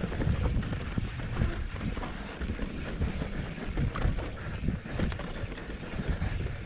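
Wind buffeting the camera microphone and knobby tyres rumbling over a dirt trail as a mountain bike descends, with frequent knocks and rattles from the bike over bumps.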